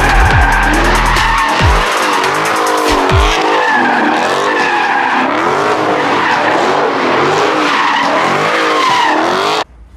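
Dodge Charger Scat Pack's V8 doing donuts: the engine revs with a wavering pitch and the tyres squeal and skid. Music with deep sliding bass notes sits underneath in the first three seconds or so. It all cuts off suddenly near the end.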